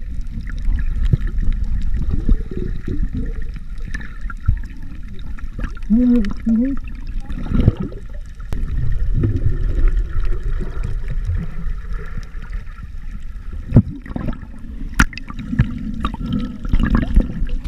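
Muffled underwater sound of churned seawater and bubbles, heard from a camera below the surface as snorkelers swim and kick close by, with a low wash and several sharp knocks.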